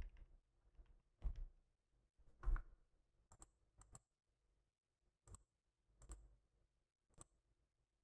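Computer mouse clicking a handful of times, single and paired sharp clicks spread over several seconds. Two softer, duller knocks come before them in the first few seconds.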